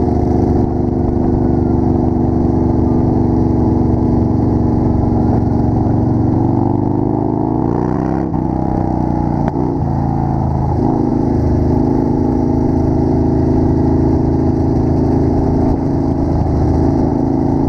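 Motorcycle engine running steadily on the road, heard from a rider's helmet camera. About eight seconds in the engine note drops as the bike slows, then picks back up a couple of seconds later.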